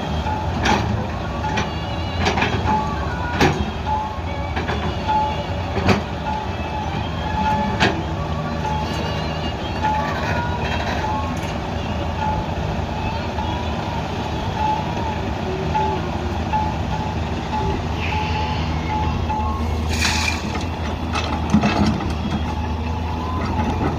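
Heavy diesel construction machinery running steadily, with a reversing alarm beeping over and over and occasional sharp clanks.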